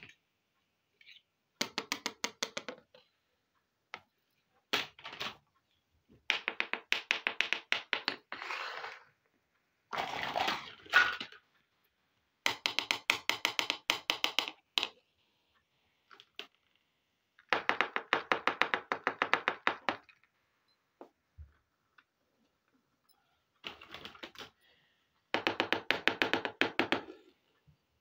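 Small plastic miniature toy kitchen pieces being handled: about eight quick runs of rapid plastic clicking and tapping, each a second or two long, with silent pauses between.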